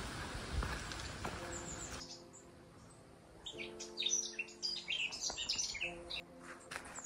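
Woodland songbird singing: a run of quick, high chirps and trills about three and a half seconds in, lasting a couple of seconds, after a steady rushing noise that cuts off abruptly about two seconds in.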